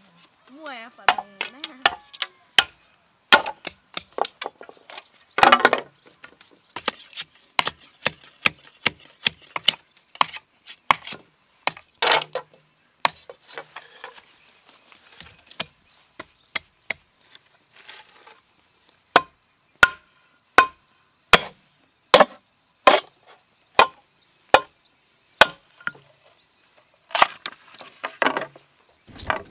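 Machete blows chopping and splitting green bamboo: a long series of sharp wooden knocks, irregular at first, then evenly paced at about one and a half a second for a stretch.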